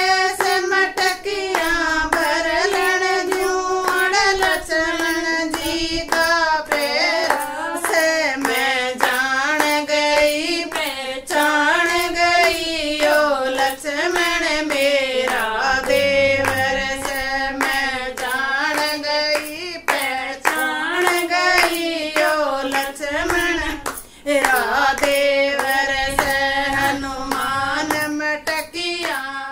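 Three women singing a Haryanvi folk bhajan together without instruments, clapping their hands to a steady beat.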